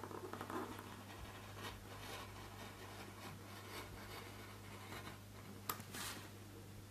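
Craft knife blade scoring slowly through thick card on a cutting mat: a faint, scratchy rasp under steady hand pressure. A sharp click about three-quarters of the way through.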